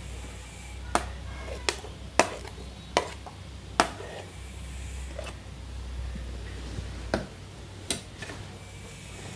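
Sharp knocks against a nonstick kadhai, about seven spread irregularly, as green peas are scraped in from a plate and stirred with a wooden spatula, over a faint low hum.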